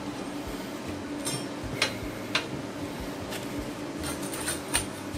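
Notched steel tubes handled on a concrete floor: several sharp metallic clinks and light scrapes as the pieces are knocked together and fitted into place for welding.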